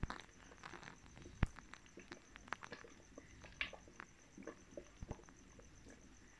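A ghotna (dal masher) churning thick, soft-cooked masoor dal in a metal pot: faint wet splats and irregular knocks of the masher against the pot, the sharpest about one and a half seconds in.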